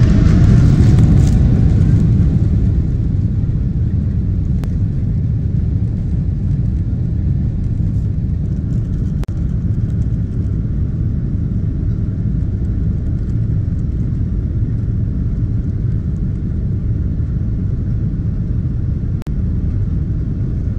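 Cabin noise aboard a Boeing 777 rolling on the ground: a steady low rumble of the jet engines and the wheels on the pavement, a little louder in the first couple of seconds.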